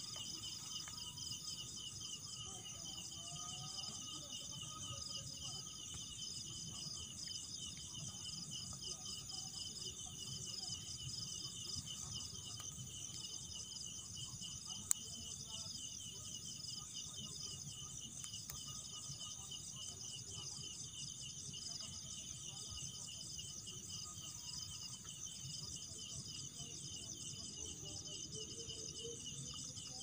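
Night chorus of crickets and other insects, several trilling together in fast, even pulses at different high pitches, with a single sharp click about halfway through.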